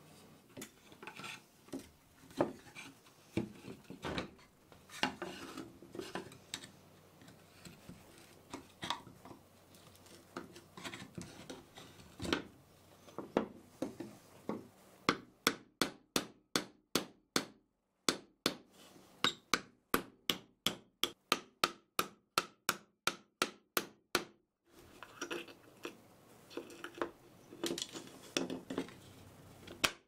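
Wooden grinder parts knocked and rubbed against a wooden workbench. About halfway in comes a steady run of sharp taps, about three a second, from a small hammer striking a small wooden panel, with a couple of short pauses. Then more irregular knocks.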